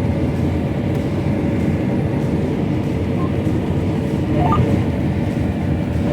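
John Deere S680 combine running steadily, heard from inside the cab: an even diesel and machinery drone with a faint steady hum.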